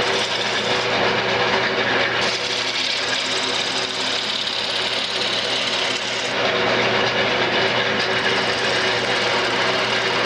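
Wood lathe running with a gouge cutting into a spinning cherry-and-maple spindle: a steady motor hum under the rough scraping hiss of the cut, which gets fuller for about four seconds in the middle.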